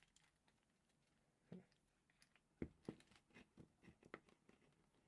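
Faint, irregular clicks and taps of small metal parts being handled and fitted together as the scooter key switch's barrel is locked into its casing.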